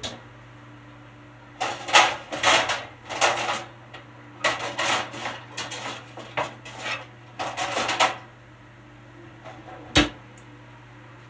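Metal baking pans clattering and scraping against each other as a stack is rummaged through in a kitchen cabinet and a sheet pan is pulled out, a run of uneven knocks lasting several seconds. It stops, then one sharp knock comes near the end.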